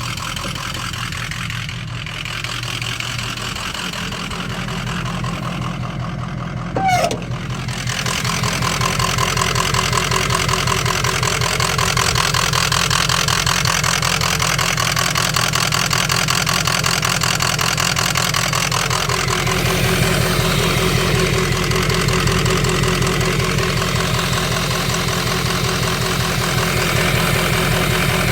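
Ford 6.0 Powerstroke V8 turbodiesel idling rough, which the owner suspects comes from a bad ICP (injection control pressure) sensor. A short, sharp sound comes about seven seconds in, and the engine grows louder about a second later.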